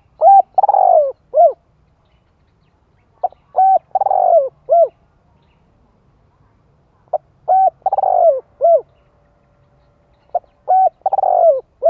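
Male spotted dove cooing: four phrases, about every three and a half seconds, each of a few short notes around one longer falling note. This is the kind of provoking call used with a decoy to draw in wild doves.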